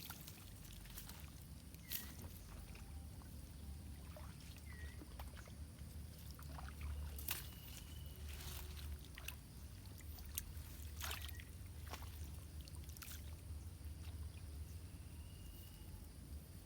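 Wind rumbling on the microphone with water lapping, broken by scattered small clicks and a few faint, short high chirps.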